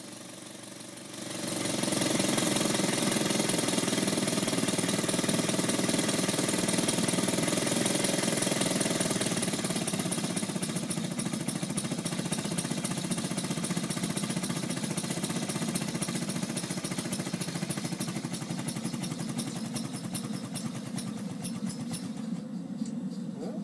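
Quasiturbine air/steam expander, fed low-pressure steam, starting up about a second in and running with a rapid pulsing beat and hissing exhaust. It gradually gets quieter over the last several seconds as it slows.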